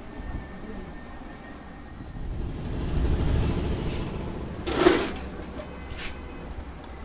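Vehicle rumble that swells and fades, with a sharp loud clatter about five seconds in and a shorter one a second later.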